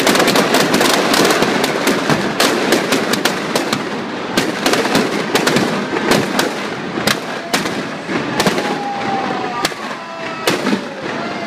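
Firecrackers packed inside a burning effigy going off. A dense, rapid crackle of bangs in the first few seconds thins out into separate sharp bangs, a few a second, as the level slowly falls.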